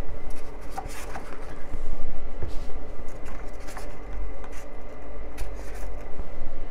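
Small plastic dropper bottles being pushed back into a styrofoam tray in a cardboard box: scattered light taps, clicks and scrapes over a steady low hum.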